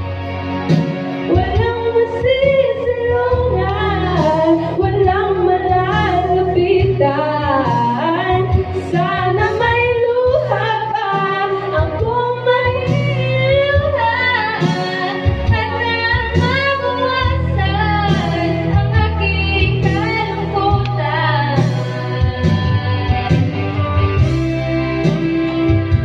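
A girl's voice singing a song through a karaoke microphone over a backing track with a steady low bass; the held notes waver up and down.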